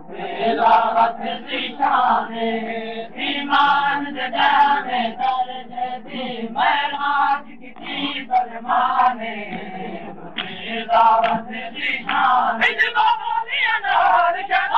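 A crowd of men chanting a Shia nauha lament together, many voices overlapping in repeated sung phrases.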